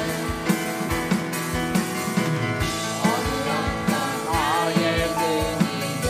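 A worship team singing a Korean praise song over live band accompaniment with a steady drum beat.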